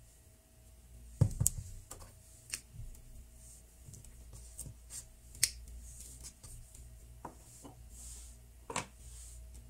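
Hands working Play-Doh with a plastic rolling pin on a tabletop: scattered sharp clicks and taps of the plastic roller and fingers on the table, the loudest a knock about a second in, over a low steady hum.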